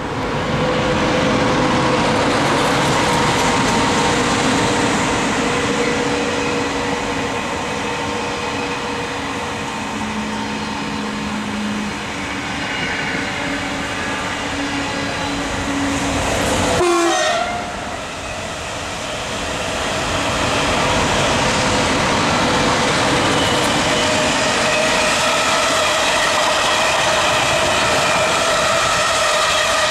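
A TGV Duplex double-deck high-speed train passing close by, then a freight train of hopper wagons passing on the other track. Wheels and rails make a steady loud rush, with several held whining tones over it.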